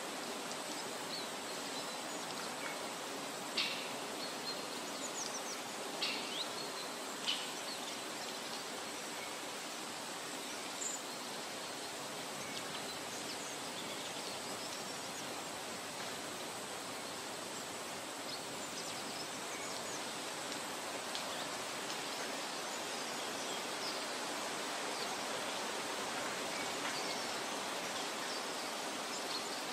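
Steady, even background hiss with a few brief high-pitched chirps in the first part, like outdoor ambience.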